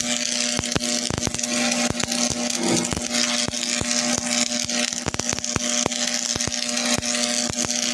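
Electric arc welding during metal fabrication: dense, irregular crackling and a high hiss over a steady electric hum.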